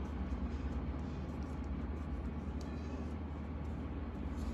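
Steady low background hum with an even hiss and a few faint small clicks.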